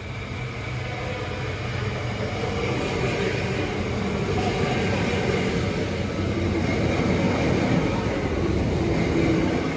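Queensland Rail electric suburban train running alongside a station platform, its wheels rumbling on the rails, getting steadily louder as the carriages come close.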